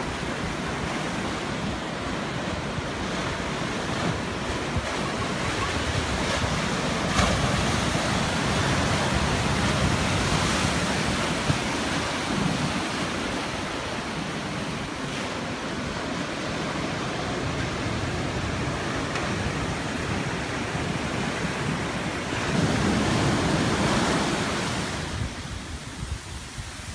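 Ocean surf breaking and washing in over rocks and sand, a steady rush that swells louder for a few seconds about a quarter of the way in and again near the end.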